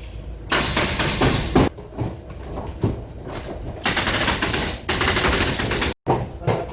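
Pneumatic nail gun (tacker) firing in rapid runs of shots, one about half a second in and another about four seconds in, with scattered single shots between.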